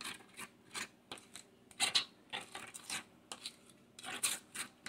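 Metal spoon scraping a mayonnaise spread across a crisp, fried corn tostada shell in a quick series of short strokes, about three a second.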